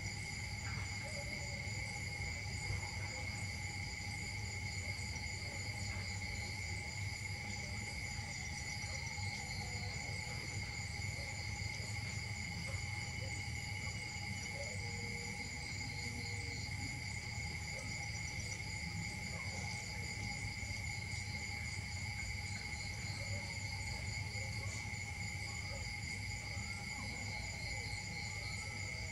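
Chorus of insects trilling steadily at several high pitches at once, the highest ones pulsing, over a constant low rumble.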